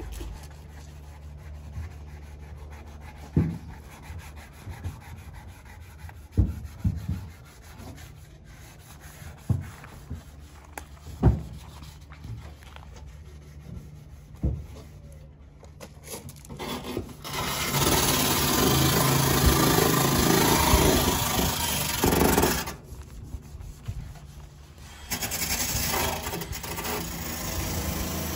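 Hand sanding inside a 1971 VW Super Beetle, sandpaper rubbing on the painted sheet metal to dull it for paint. Scattered knocks come through the first half. The rubbing turns louder and steadier past the middle, stops for about two seconds, then starts again.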